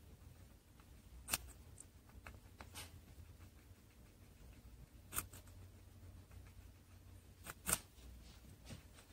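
A guinea pig biting and chewing fresh food: a handful of sharp crunches a few seconds apart, the loudest a close pair near the end, over a quiet low hum.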